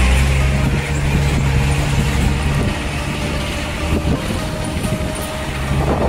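A 4x4 vehicle driving along a rough dirt track, heard from inside: a steady low engine drone with road noise, easing a little about halfway through.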